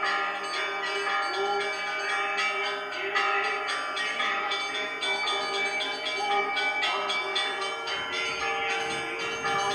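Church bells ringing: several bells of different pitches struck again and again, their tones overlapping and ringing on.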